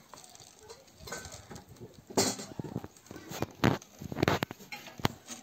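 Grain-filled plastic bottle being set and shifted on a round metal tray: grain rattling and pattering out onto the metal, with a run of loud knocks and clatters from about two seconds in.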